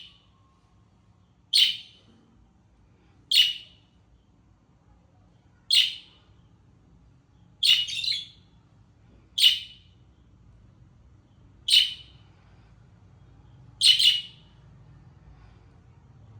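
Pet budgerigar giving short, sharp chirps, one at a time about every two seconds, seven in all, with one quick double call near the middle.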